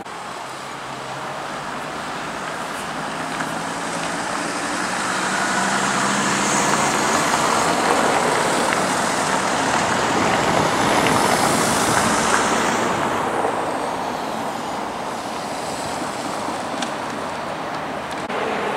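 Street traffic with a car driving past close by. The engine and tyre noise swells to its loudest about six to twelve seconds in, then eases off.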